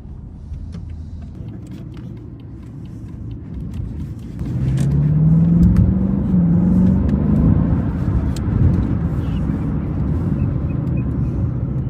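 Car engine and exhaust running with a low rumble. About four seconds in it grows louder and its pitch climbs and wavers as the engine speeds up, then it eases back.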